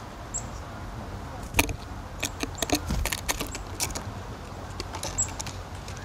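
Woodland ambience with small birds about: a run of sharp ticks and rustles in the middle seconds, and two brief high chip notes, one near the start and one near the end, over a steady low background rumble.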